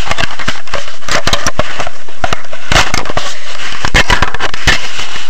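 Loud, irregular crackles and knocks of blanket fabric rubbing and pressing against the camera's microphone.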